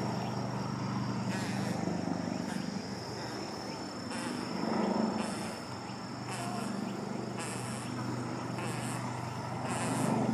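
A steady low mechanical hum, like a distant engine, with short high hissy rustles coming and going on top.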